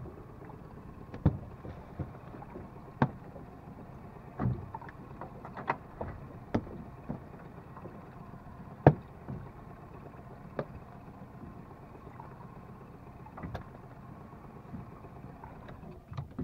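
Small open fishing boat rocking on a choppy sea: irregular knocks and slaps, about a dozen, some sharp and loud, over a steady low hum.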